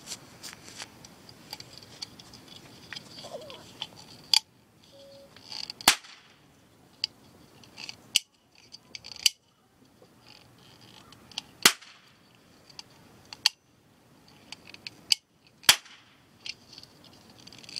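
Toy cap gun firing 8-shot ring caps: about seven sharp pops, one to two seconds apart, with fainter clicks between them.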